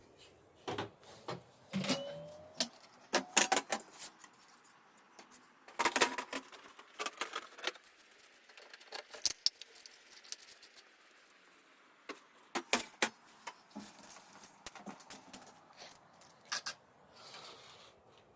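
Irregular clicks, taps and rattles of small hard objects being handled, in clusters, with a short rising squeak about two seconds in.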